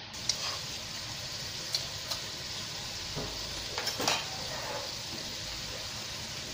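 Pea shoots and prawns sizzling steadily as they stir-fry in a pan, with a few short taps and scrapes of a utensil against the pan, the loudest about four seconds in.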